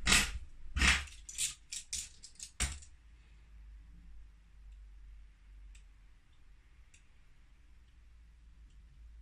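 Small hard plastic calculator keycaps and parts clicking and clattering, a quick run of about eight sharp clicks in the first three seconds, then only faint ticks.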